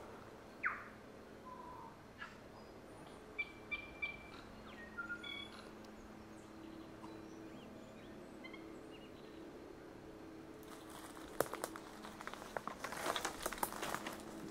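Wild birds calling in the bush: a short call sliding downward near the start, then scattered short whistled notes. From about ten seconds in, footsteps crunch and crackle through undergrowth.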